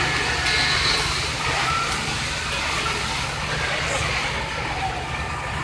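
Steady rumbling noise at a large building fire, dominated by fire-engine engines and pumps running, with faint voices in the background.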